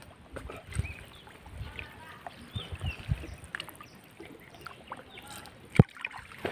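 Pond water sloshing and splashing around a person wading and lifting a gill net, with irregular low thuds, and one sharp knock near the end.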